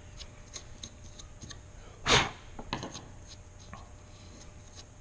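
Wood chisel paring torn-out grain from the edge of a groove in a wooden board: faint scraping and small ticks, with one louder scraping stroke about two seconds in and a few softer knocks after it.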